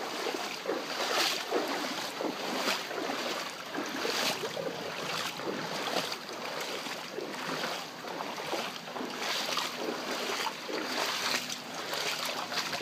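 Footsteps wading through ankle-deep floodwater, a splash about once a second, over a steady rush of flowing water.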